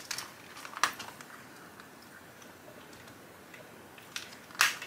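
A few sharp plastic clicks from a small compartment box of rubber scissor bumpers being opened and handled, with a louder click near the end.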